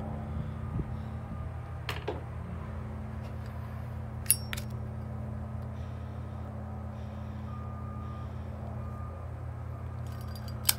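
Heavy construction machinery running steadily, with a few short reversing-alarm beeps in the second half. A few sharp clicks stand out, the loudest about four seconds in and near the end.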